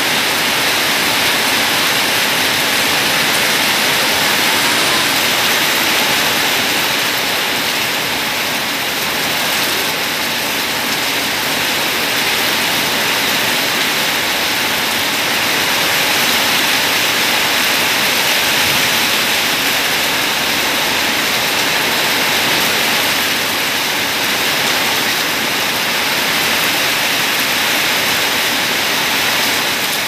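Heavy rain falling steadily on wet tiled paving and a flooded street, a dense, even hiss.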